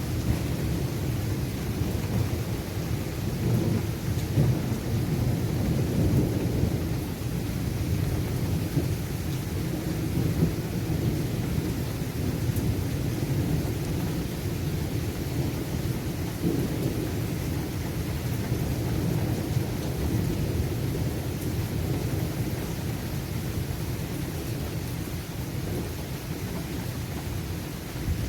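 Continuous low roar from a severe thunderstorm overhead, with light rain falling, steady and without distinct thunderclaps. It sounds like strong wind although there is little wind at the ground, which the uploader takes for something violent happening high overhead.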